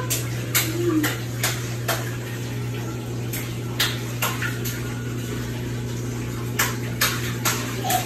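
LG TurboDrum top-loading washing machine draining the last rinse water. The drain pump runs with a steady low hum under the noise of the water, and about a dozen irregular sharp clicks sound over it.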